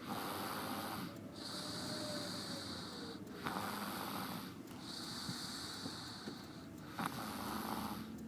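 A toddler snoring in her sleep: slow, even breaths, about three full breaths, each with a higher, hissier half and a lower half in turn, separated by short pauses.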